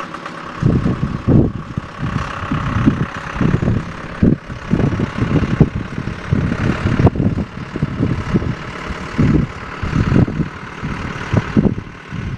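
John Deere 6420 tractor's six-cylinder diesel engine running as the tractor drives across the field, heard from a distance. Gusty wind buffets the microphone in irregular low rumbles that come and go throughout and are often louder than the engine.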